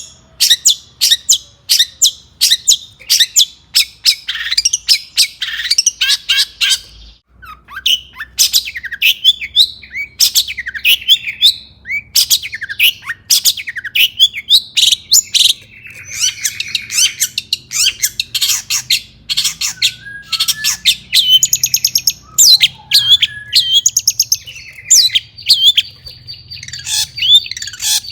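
Long-tailed shrike (cendet) singing energetically in a fast run of sharp, harsh chips mixed with short whistled glides, pausing briefly about seven seconds in.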